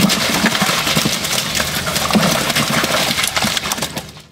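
A cast net full of mullet emptied onto a boat deck: a dense patter of fish flopping and slapping, over the steady hum of an idling boat engine. It fades off abruptly near the end.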